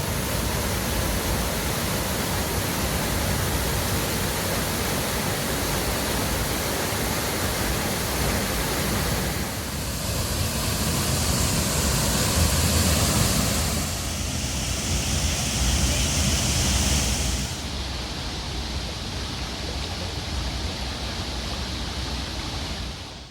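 Waterfall roar: a loud, steady rush of falling water with heavy low rumble. Its tone shifts abruptly about ten, fourteen and seventeen seconds in.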